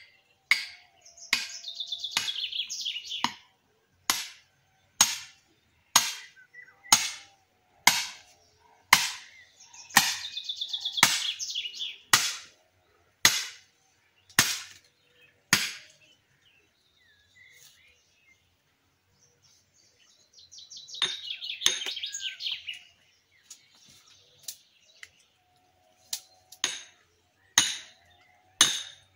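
Steady hammer blows, about one a second, driving nails into a log to split it. They pause for about ten seconds in the middle and start again near the end. A songbird sings in short bursts between the blows.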